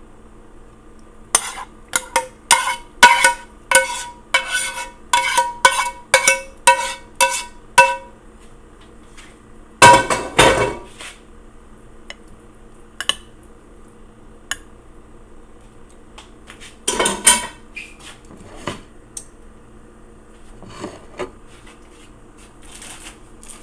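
A utensil knocking against a cooking pan and dish while thick dip is spooned out: quick ringing clinks, about two a second, for several seconds, then a louder scraping clatter about ten seconds in and another near seventeen seconds.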